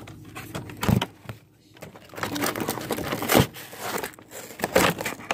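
Cardboard box and packaging being handled: rustling and scraping, with a few sharp knocks.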